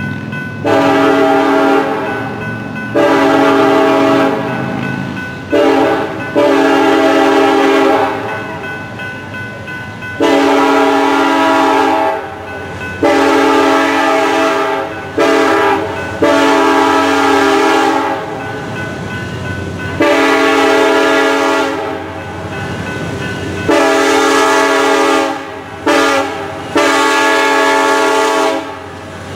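Air horn of a BNSF SD70ACe diesel locomotive leading a coal train, sounding the grade-crossing signal (long, long, short, long) three times over as the train approaches the crossing.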